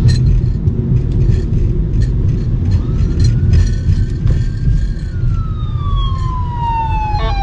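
Fire engine siren wailing: its pitch rises about three seconds in, falls slowly, then sweeps sharply back up at the end. Under it runs the steady low rumble of a car driving.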